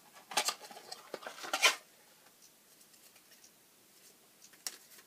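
Brief handling noises of a small plastic box of glue dots being picked up: two short rustling scrapes in the first two seconds, the second the louder, and a single faint click near the end.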